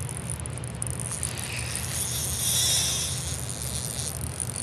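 Fishing reel working as a hooked smallmouth bass is fought from a kayak: a thin, high buzz over a steady low hum, swelling louder about two seconds in.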